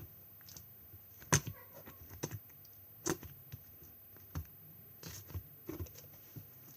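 Handmade glossy slime being pressed and worked by hand, making irregular sharp clicks and pops, the loudest about a second and a half in and again about three seconds in.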